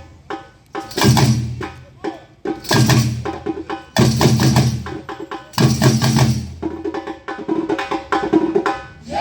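Instrumental music with loud drum hits about every one and a half seconds over a fast, ticking percussion pattern and held tones.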